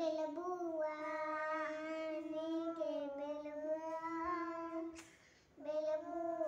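A young child singing in long, drawn-out notes with a slight waver, breaking off briefly about five seconds in and then taking up another held note.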